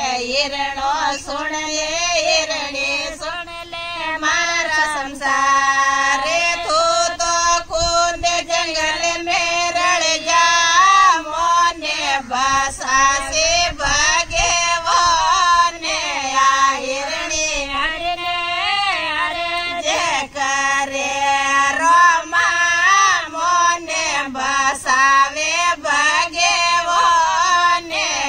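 Women singing a Marwari devotional bhajan together, with hand claps keeping time.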